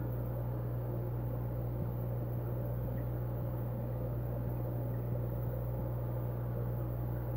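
Aquarium equipment running: a steady low hum with a wash of bubbling water from an air-stone bubble curtain.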